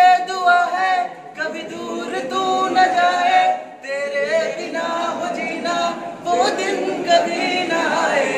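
A small group of young men singing a song together with no instruments. Their phrases break off briefly about a second in and again just before four seconds.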